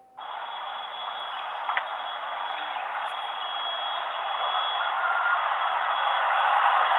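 A cicada in a tree giving its loud, steady buzzing call, which starts abruptly and slowly grows louder, with a thin high whine running through it.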